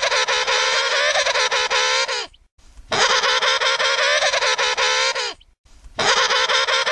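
Emperor penguin trumpeting: the same buzzy, pulsing call repeated, each call lasting about two and a half seconds with a brief pause between. One call ends about two seconds in, a full call follows, and another begins near the end.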